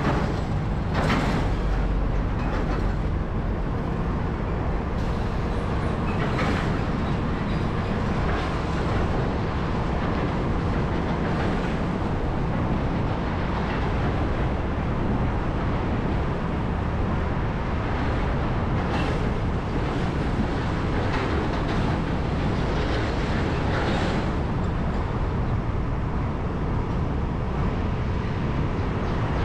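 Steady road traffic noise, the low rumble of vehicles on a city street, with a few brief louder moments.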